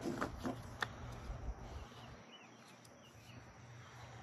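A few light clicks and taps from handling the plastic parts of a string trimmer's engine in the first second or so, then faint outdoor background with a couple of short bird chirps.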